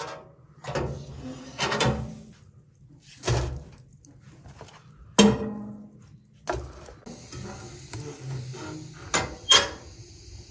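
Cooking utensils and dishes being handled at a worktable: about eight separate knocks and clatters, some ringing briefly. A steady high hiss joins them about seven seconds in.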